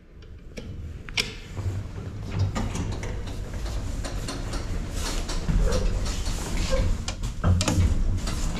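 A 1984 KMZ passenger lift working: a low hum that grows louder, with many sharp clicks and knocks from its mechanism.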